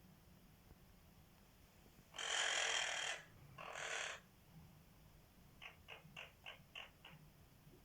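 Quaker parrot vocalizing: two harsh, raspy calls about two seconds in, the first longer, then a quick run of six short clicking notes, about four a second.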